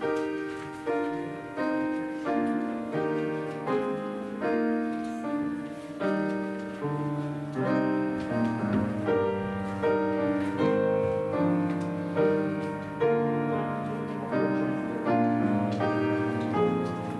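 Piano music: slow, even chords, each struck and fading away before the next.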